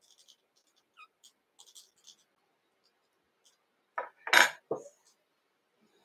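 Small metal clicks and clinks from fly-tying tools and the vise being handled: a few faint light ticks, then a short cluster of louder clinks about four seconds in.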